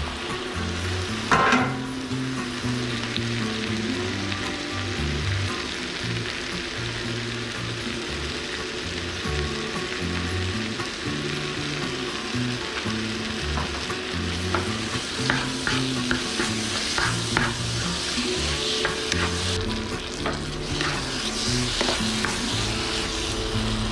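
Food sizzling as it fries in a pan, stirred with a utensil that knocks against the pan, loudly once about a second in and in a few quick clicks later on. Background music plays underneath.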